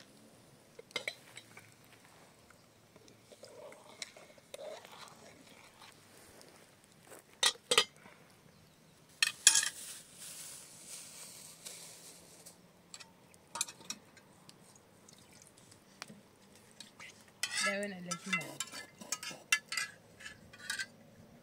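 Pots, bowls and utensils clinking and knocking now and then, in separate short strikes, the loudest near the middle and a quick cluster near the end.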